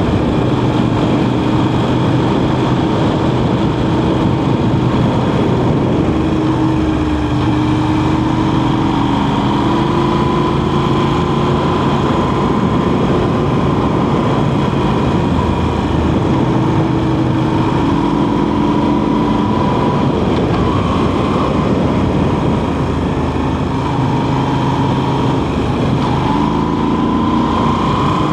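Motorcycle engine running under way, its pitch stepping up and down every few seconds with throttle and gear changes, over a steady rush of wind and road noise.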